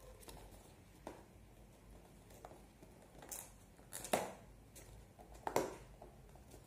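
A small cardboard product box handled and picked at to open it: scattered scrapes and taps of fingers on the card, the loudest about four seconds in and again about five and a half seconds in.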